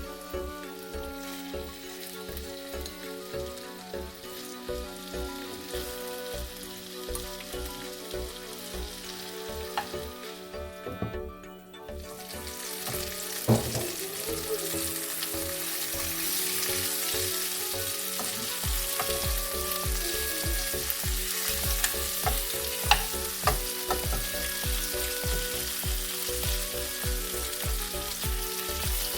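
Chicken wings sizzling as they fry in a frying pan. About twelve seconds in the sizzle grows much louder and stays loud. A steady-beat background music track runs underneath.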